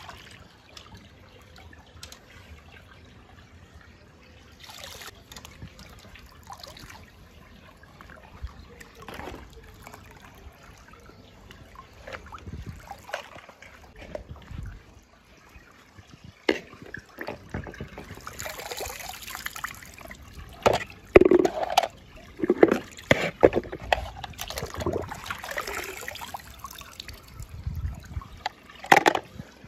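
Water trickling and sloshing as small toy cars are moved and dropped into it, with a run of uneven splashes and plops in the second half, the loudest a little past two-thirds of the way through.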